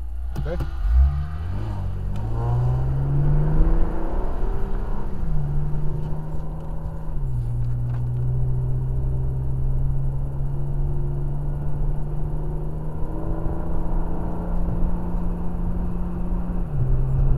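Car engine heard from inside the cabin as the car pulls away and accelerates, its note rising then dropping in steps at upshifts, holding steady for a while, then stepping up and back down again near the end. A short thump sounds about a second in as it moves off.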